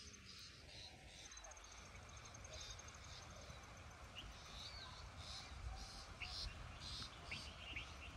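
Faint bird chirps, short high calls repeated every second or so, with a thin high trill in the first few seconds, against quiet background noise.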